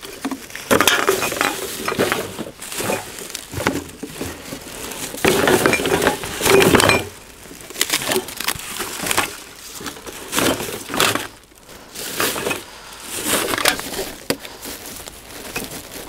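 Discarded plastic and glass bottles clinking and rattling as they are gathered from a litter heap into a plastic rubbish bag, with the bag rustling; the clatter comes in irregular bursts, on and off.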